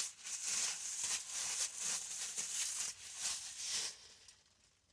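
Rustling and small clicks of plastic wiring-harness connectors and loose wiring being handled and plugged in, stopping about four seconds in.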